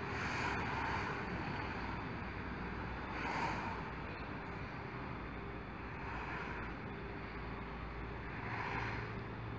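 Steady outdoor low rumble and hiss that swells about every three seconds.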